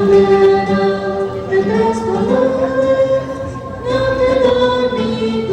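Music with choir-like singing: voices holding long sustained notes that move to a new pitch every second or two.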